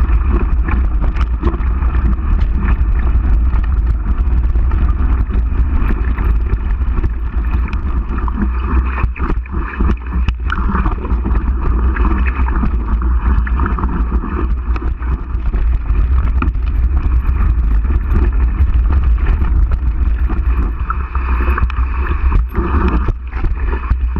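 Mountain bike descending a rough gravel and rocky trail, picked up by an on-bike camera: a steady wind rumble on the microphone, with tyres crunching over stones and the bike rattling and knocking over rocks.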